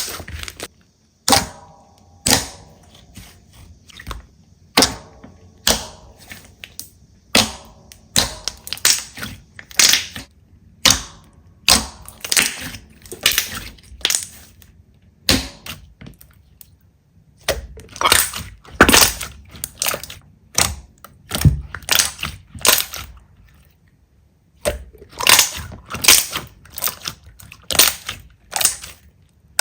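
Slime being squeezed, pressed and poked, giving a run of sharp pops, clicks and crunches in irregular clusters, with a few short pauses between them.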